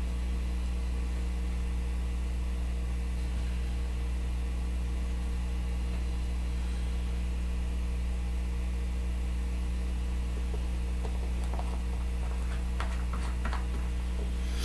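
Steady low electrical mains hum, with a few faint light clicks in the last few seconds.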